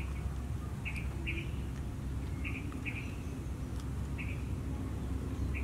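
A bird calling in short two-note chirps, repeated about every one and a half seconds over a steady low background rumble.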